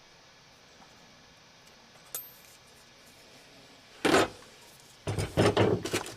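Small metal tools and fittings being handled, clinking and clattering: a single sharp metallic click with a brief ring about two seconds in, a heavier knock about four seconds in, then a quick run of clattering knocks near the end.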